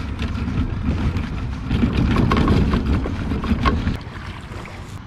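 Pedal kayak rolling on its landing-gear wheels over pavement and down a boat ramp: a rough, steady rumble with scattered clicks and knocks, dropping off about four seconds in.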